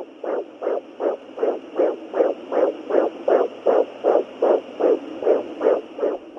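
Fetal heartbeat through a handheld fetal Doppler's speaker: a rapid, even whooshing pulse, about 160 beats a minute, over a steady hiss.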